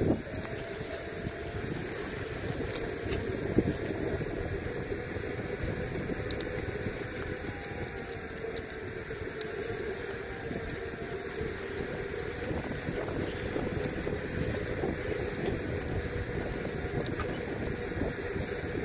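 Riding an electric kick scooter: wind buffeting the microphone over the rumble of the small wheels on a concrete path, with a steady whine from the scooter's electric motor. One sharp knock comes a few seconds in.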